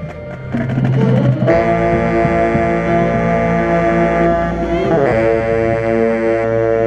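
Marching band of brass and saxophones playing loud, long held chords, with a tenor saxophone close to the microphone. A chord swells in about a second and a half in, breaks off briefly near five seconds, then another held chord follows.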